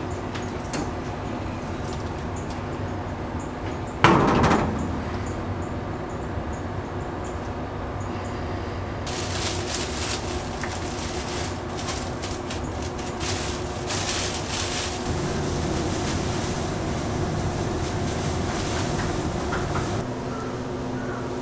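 Steady machinery hum in a rice mill, with a single loud metallic clang about four seconds in that rings briefly. From about halfway through, a steady hiss joins the hum and stops near the end.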